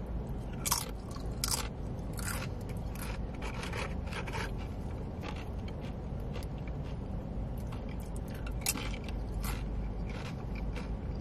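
Close-up eating sounds: irregular chewing, smacking and crunching of takeout food, over a steady low hum.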